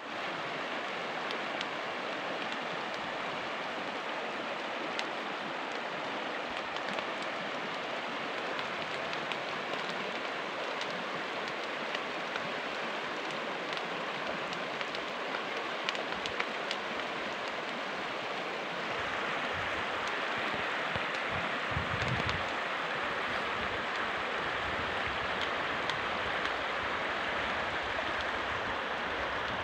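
Shallow stream running over stones: a steady rush of water that grows louder about two-thirds of the way through.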